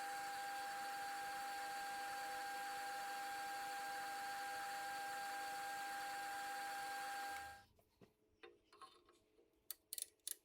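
Metal lathe running steadily with no cut, a high whine over its motor hum, then switched off suddenly near the end. A few light clicks and taps follow as the tooling and work are handled.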